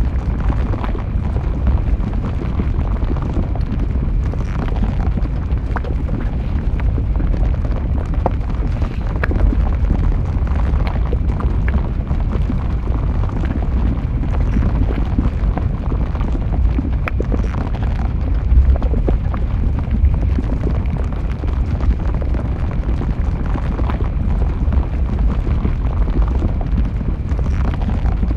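Flowing lava: a steady deep rumble with scattered sharp crackles and pops throughout.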